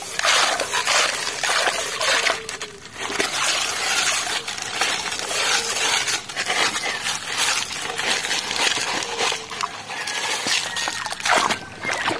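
Wet gravel being scooped by hand out of a plastic toy dump truck's bed: a continuous crunching and rattling of small stones, mixed with splashing and sloshing of shallow water.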